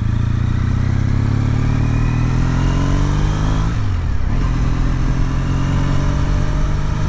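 Triumph T100 parallel-twin motorcycle engine pulling under acceleration: the pitch climbs for about three and a half seconds, drops sharply at an upshift just under four seconds in, then climbs again in the next gear.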